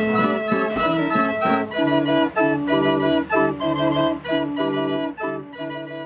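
Fairground organ playing a tune: pipe chords over a rhythmic bass line, with a drum beat under a second in. The sound fades near the end.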